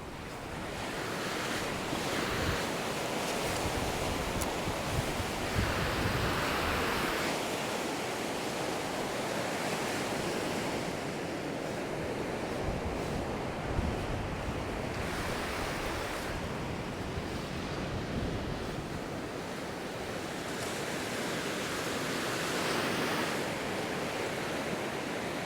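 Ocean surf breaking and washing on a sand beach, a steady wash that swells every few seconds as waves come in, with some wind on the microphone.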